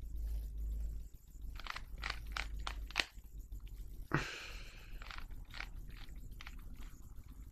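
Rubik's cube being twisted by hand: a run of short plastic clicks as the layers turn, with a louder scraping rasp about four seconds in.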